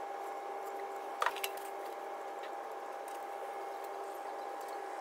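Engine oil draining from the sump plug hole of a Ford Focus 1.6 TDCi diesel in a thin stream into a waste-oil drainer's funnel: a steady trickling hiss. A faint steady hum runs under it, and a single light tap comes about a second in.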